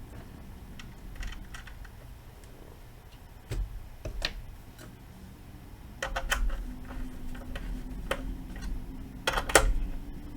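Scattered clicks and clacks of handling tools, test leads and equipment on a workbench, with a few louder knocks. About six seconds in, a steady low hum starts and keeps going.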